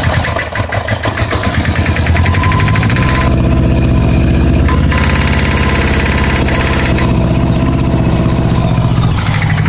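Honda GL1100 Goldwing flat-four engine idling with a fast rattling clatter. About three seconds in, the note turns heavier and lower with less of the clatter, and it shifts again near the end. This is a cylinder-by-cylinder test for the rattle, with one spark plug wire pulled, and the number 4 cylinder changes the sound.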